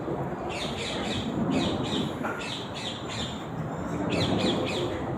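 Birds squawking in three quick runs of short, high calls that fall in pitch, about four calls a second, over steady background noise.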